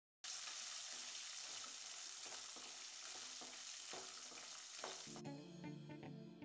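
Oil sizzling as shallots, garlic and dried red chillies fry in a metal kadai, with a wooden spoon stirring and scraping through them. Background music comes in about five seconds in.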